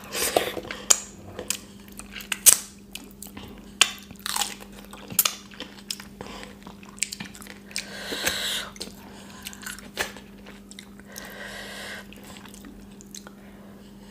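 Close-miked eating by hand: wet chewing, lip smacks and finger licking over a meal of rice soaked in kadhi. Short sharp clicks and smacks come all through, with a few longer hissy slurps in between.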